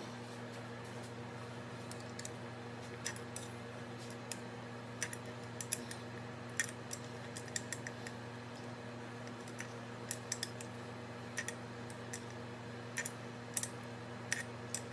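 Scattered light clicks and taps of small metal parts, tools and a plastic parts bag being handled on a workbench, over a steady low hum.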